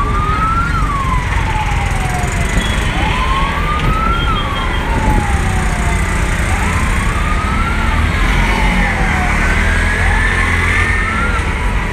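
Wailing siren that climbs quickly and falls away slowly, about every three and a half seconds, heard over the steady low rumble of a moving auto-rickshaw's engine and road noise.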